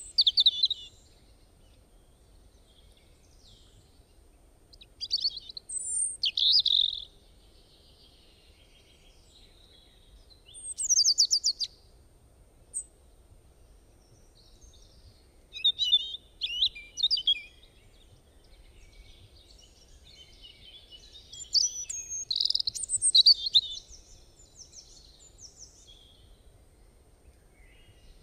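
Small birds chirping and singing in short bursts of rapid high notes, every few seconds, with quiet gaps between.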